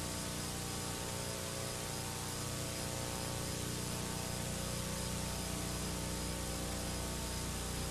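Steady hiss with a low electrical hum from an old VHS recording, with no program sound; the tape is in poor condition.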